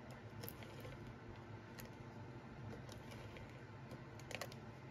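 Faint clicking and scraping of a Stampin' Seal Plus tape-runner adhesive being pushed along paper strips on a silicone mat, with scattered small clicks and a short cluster of them near the end.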